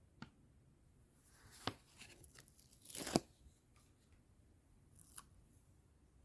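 Small hand-handling sounds: a few light clicks and taps, and a short tearing rustle about three seconds in that ends in a sharp click.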